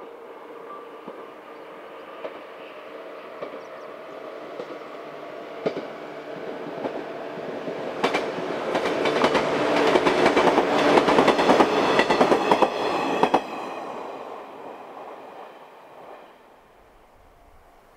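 Shinano Railway 115 series electric train approaching and passing close by. It builds slowly, is loudest for several seconds around the middle with a rapid clickety-clack of wheels over rail joints, then fades away.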